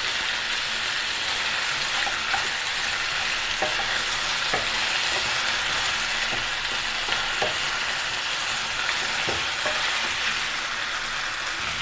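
Chicken pieces sizzling in a pan as they fry and start to release their water, with a steady hiss and occasional light clicks of a spatula stirring.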